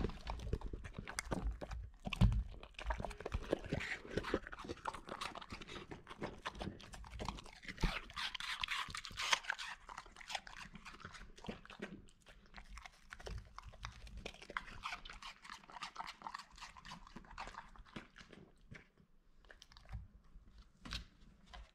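Bernese mountain dog eating strawberries and apple pieces from a stainless steel bowl: close, wet chewing and crunching that thins out near the end.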